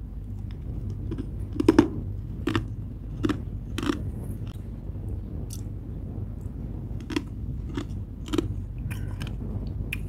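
Soft, crispy freezer frost being bitten and chewed: separate crunches, one after another, in two runs, the first starting a little after a second in and the second starting about seven seconds in, over a steady low hum.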